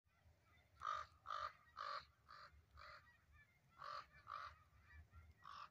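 Crow cawing in a steady series, about two caws a second: five caws, a short pause, then four more.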